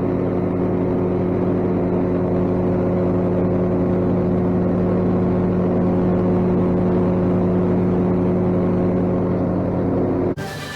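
Engine-driven grain mill running steadily, a constant engine note with an even hum under it. The drone cuts off abruptly about ten seconds in and music begins.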